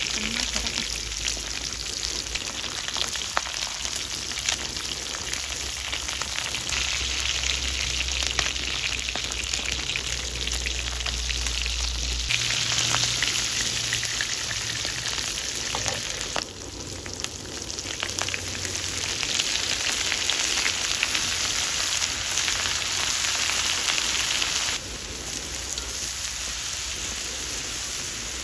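Food frying in a hot pan, a steady sizzle that changes level abruptly twice.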